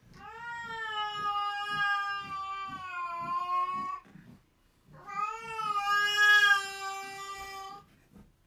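Domestic cat yowling at another cat: two long, drawn-out caterwauls of three to four seconds each, the second starting about five seconds in.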